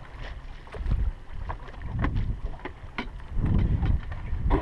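Wind buffeting the microphone in gusts, with several short sharp clicks and knocks scattered through it.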